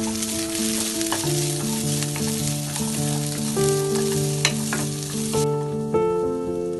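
Sliced onion and cashew nuts sizzling in hot oil in a non-stick kadai while being stirred with a wooden spatula, with a few sharp clicks of the spatula. The sizzle cuts off suddenly about five and a half seconds in. Background music with plain stepped notes plays throughout.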